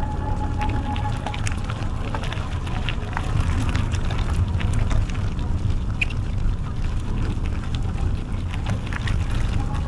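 Bicycle rolling along a trail: a steady low rumble of tyres and wind on the microphone, with scattered small clicks and rattles from the bike. A thin steady high tone sounds at the start and fades out about a second in.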